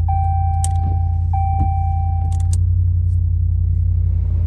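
Ram pickup truck engine idling, a loud steady low rumble heard inside the cab. A dashboard warning chime sounds as a steady tone, restarting twice and stopping about two and a half seconds in, with a few sharp clicks over it.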